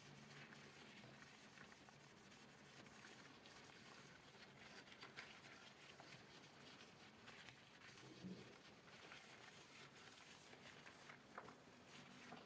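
Faint cloth wiping and rubbing over an object's surface, soft swishing strokes with a few light taps and clicks.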